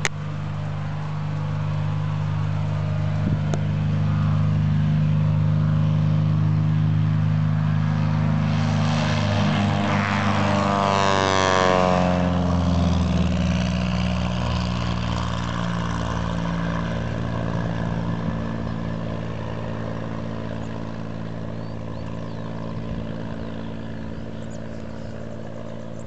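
Small single-engine propeller airplane taking off at full power: the piston engine and propeller grow louder as it approaches, pass close by about ten seconds in with a falling pitch, then fade as it climbs away.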